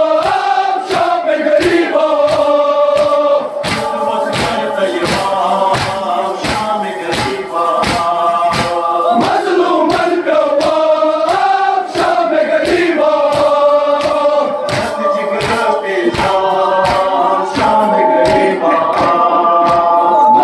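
Crowd of male mourners chanting an Urdu/Kashmiri noha lament together, over a steady beat of sharp strikes about twice a second.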